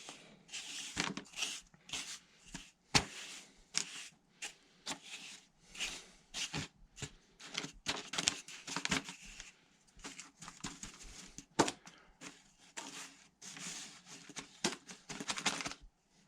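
Wet, gritty sugar being scraped and smoothed by hand into a wooden sugar-board frame over newspaper: irregular scraping and rustling strokes with a few sharp clicks.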